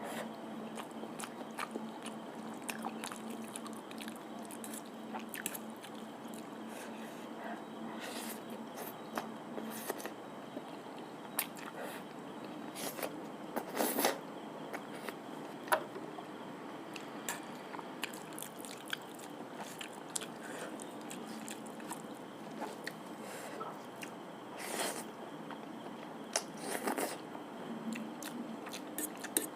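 Close-up mukbang eating sounds: biting into and chewing fried snacks, with irregular crunches and moist chewing, and a few louder crunchy bites near the middle and toward the end.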